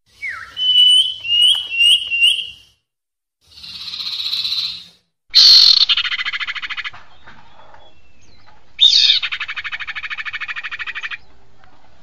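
Recorded calls of a female common iora (sirpu) played as a bird lure: a falling note and four quick high chirps, a short hissing rasp, then two long, loud buzzing trills of rapid pulses.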